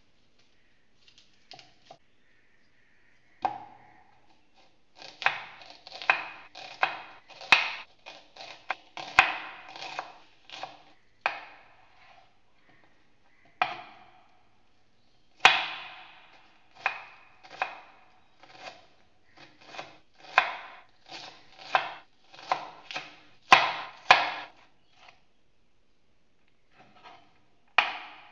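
Chef's knife chopping an onion on a wooden cutting board: a long run of sharp, irregular knocks of the blade on the board in loose clusters with short pauses, starting a few seconds in.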